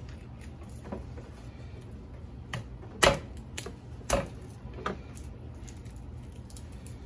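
Chef's knife knocking on a plastic cutting board while garlic cloves are smashed and peeled: a few light taps, then two loud sharp knocks about a second apart in the middle, then another lighter tap.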